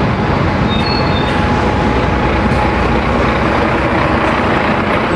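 Steady rumble of a bus engine running, dropped in as a sound effect, with a faint steady whine over it.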